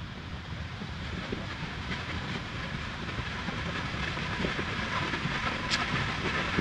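Steady low rumbling travel noise of a moving vehicle, growing gradually louder, with a few faint clicks near the end.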